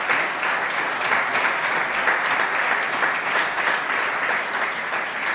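Audience applauding, many hands clapping steadily, dying away at the very end.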